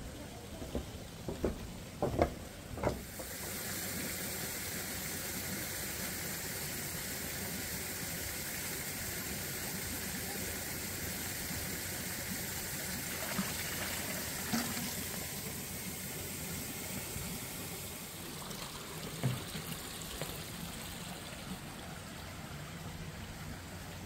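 Steady rush of water running into a garden koi pond, coming in about three seconds in and easing off near the end, after a few dull knocks at the start.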